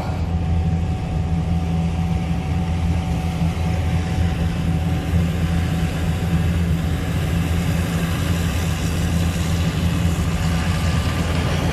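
Combine harvester running steadily while cutting wheat, its diesel engine giving a deep, even drone.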